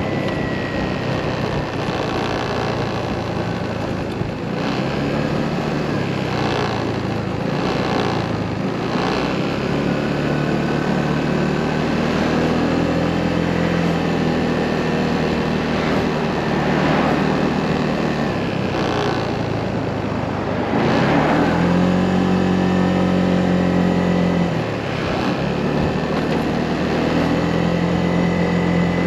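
Motorcycle engine running while riding on the road, its note rising and falling with throttle and speed and dipping briefly twice near the end, over steady wind and road noise.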